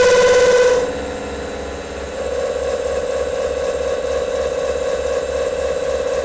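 Milling cutter on a long-overhang, undampened tool holder cutting with vibration chatter, a loud ringing tone with overtones. The tone breaks off about a second in and comes back steadier about two seconds in, over a pulsing low rumble. The chatter is the sign of tool vibration from the long overhang.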